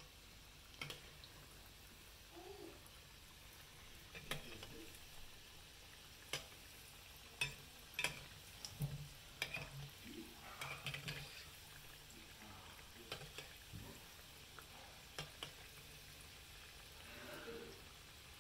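Dhekhra dumplings deep-frying in hot oil with a faint sizzle, and a spatula clicking and scraping against the pan now and then as they are turned, most often in the middle of the stretch.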